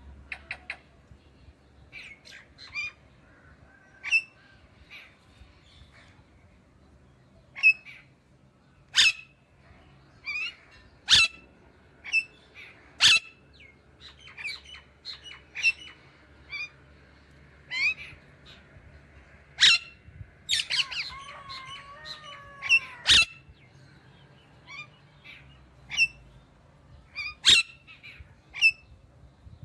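Pet parrot calling: short, sharp squawks and chirps every second or two, with a longer warbling chatter of gliding tones about two-thirds of the way through.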